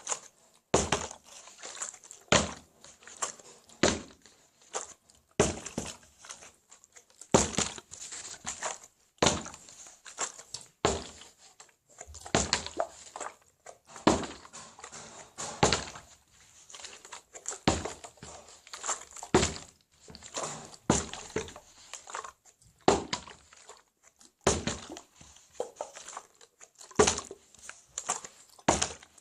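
An object tossed in a flip challenge repeatedly landing and knocking over on a hard surface: sharp thunks about every second or two, often in quick pairs.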